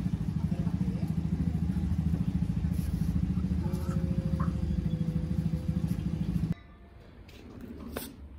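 Two subwoofers driven by a homemade transistor amplifier play deep, buzzing bass with a rapid pulse. The bass cuts off abruptly about six and a half seconds in, leaving a quieter background with a sharp tap near the end.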